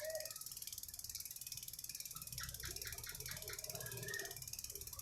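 Bicycle rear hub ticking quickly and evenly as the rear wheel spins freely on a work check, with a short run of about six louder clicks about halfway through.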